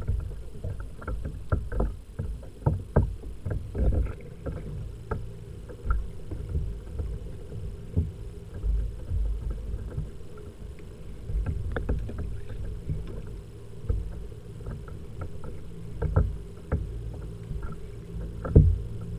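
Fishing kayak drifting at sea: an uneven low rumble of water against the hull, with irregular knocks and clicks as a fishing rod and its gear are handled on board. The loudest knock comes near the end.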